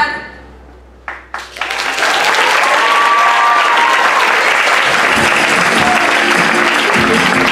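Audience applauding at the end of a song, with a long whoop rising over it about two seconds in. Music for the next number starts up under the applause around five seconds in.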